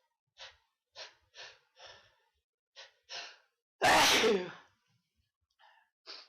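A person's sneezing fit: a run of quick, catching in-breaths building up, then one loud sneeze about four seconds in, followed by a couple of short breaths.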